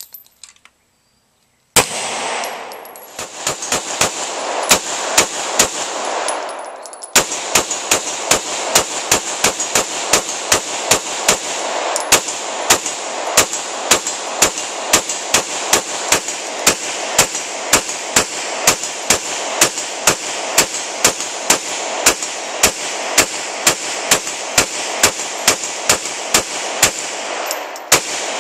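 A Glock pistol firing a long string of single shots from a 100-round Beta C-Mag drum, each shot followed by echo. The shots start about two seconds in, come quickly at first, then settle into a steady pace of about two a second.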